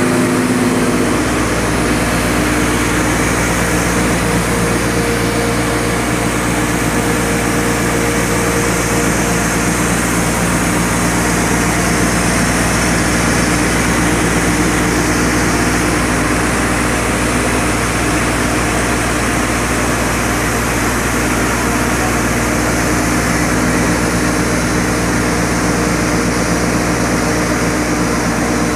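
Industrial pulverizer grinding plant running: a loud, steady machine drone of the mill, its drive motor and air blower, with a constant low hum and a few steady tones that do not change.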